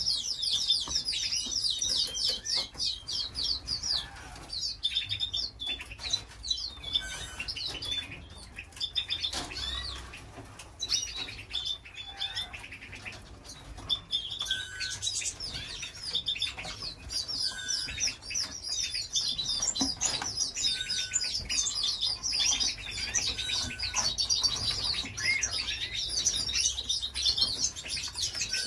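Domestic canaries singing and chirping: fast high trills run almost throughout, with short whistled notes and wing flutters in the cage. The trills are thinner between about 8 and 14 seconds in.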